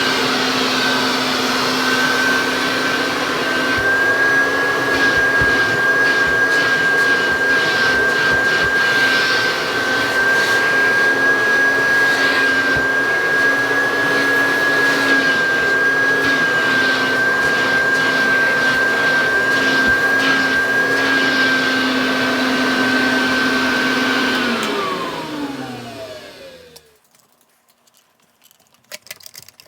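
1984 Kirby Heritage vacuum cleaner running with a steady high motor whine. About 24 seconds in it is switched off, and the whine falls in pitch and fades as the motor spins down over two or three seconds. A few faint clicks follow near the end.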